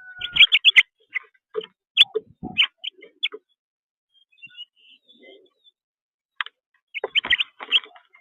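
Small songbirds chirping at a feeder: short, sharp chirps in quick clusters, with a quiet pause of a few seconds in the middle.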